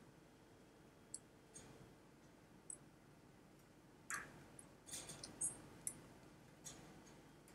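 Faint, irregular clicks of calculator keys being pressed, a few spread out and then a quick run of them about four to six seconds in.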